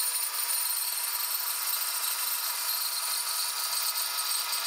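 Band saw blade cutting steadily through a wooden board during a resaw cut.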